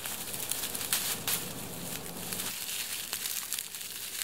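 Dry grass and reed stalks rustling and crackling as they are grabbed and torn out by hand, a dense run of small snaps and crinkles.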